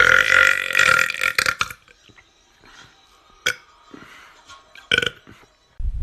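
A person belching loudly for nearly two seconds. A click and a second short, sharp burst follow later, and a low rumble starts near the end.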